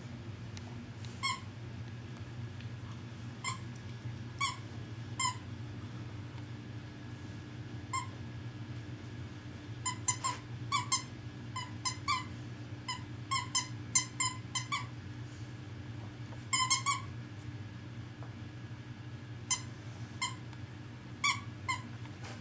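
Plush squeaky dog toy squeaked over and over as two dogs chew and tug on it. Dozens of short, high squeaks come scattered at first, then in quick runs through the middle, over a low steady hum.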